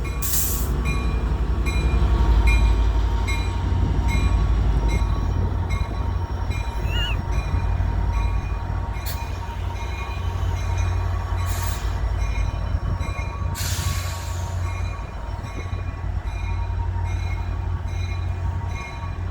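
Diesel locomotive of a Metra commuter train, an EMD F59PH, running with a heavy low rumble. A thin ringing tone repeats at an even pace throughout, and short bursts of hiss come about half a second in and around the middle.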